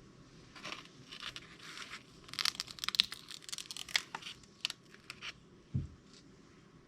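Plastic packaging being crinkled and torn in a series of irregular crackles, busiest in the middle, with a soft low thump near the end.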